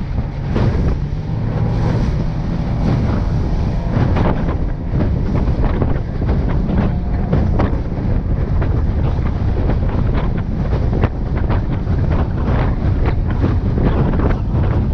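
Wind buffeting the microphone on a fast-moving panga, over the steady drone of its motor and the hull slapping through choppy water.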